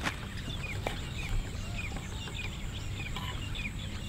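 Birds chirping all through, many short repeated calls, with a single knife tap on a wooden cutting board just under a second in.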